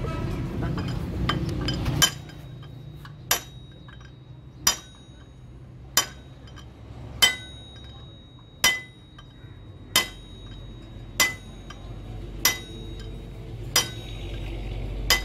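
A hammer striking a steel drift held against a gear on the shaft of a Hino truck gearbox, driving it into place during assembly. Eleven sharp, ringing metallic clinks, about one every 1.3 seconds, starting about two seconds in.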